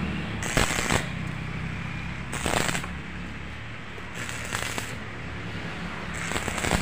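Electric arc welding on a motorcycle chassis, the arc struck in four short bursts about two seconds apart, over a low steady hum.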